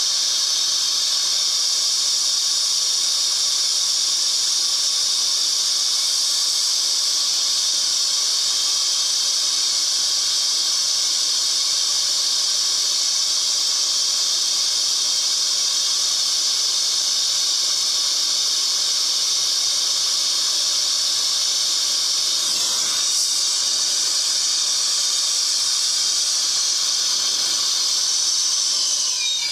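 Brazing torch flame hissing steadily while copper refrigerant-line joints are brazed with nitrogen flowing through the lines.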